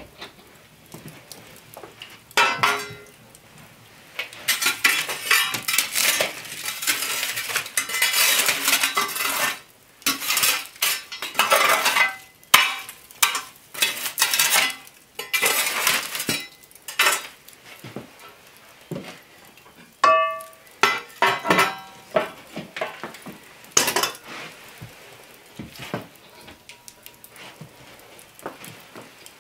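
Iron hearth tool scraping and raking hot coals and ash across a stone hearth, with clanks and knocks of iron cookware and tools. A single ringing metal clang about twenty seconds in.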